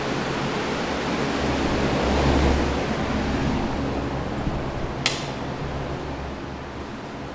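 Steady rushing air noise of pedestal fans, swelling with a low rumble about two seconds in, then fading. A single sharp click about five seconds in.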